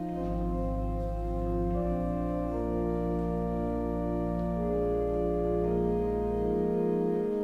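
Organ playing slow, sustained chords, with deep pedal notes underneath that drop out near the end.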